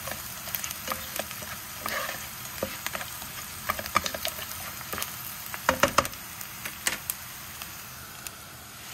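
Diced onion and garlic frying in oil over high heat in a stone-coated frying pan: a steady sizzle, with a spatula scraping and tapping the pan as it is stirred. The loudest taps come about six seconds in.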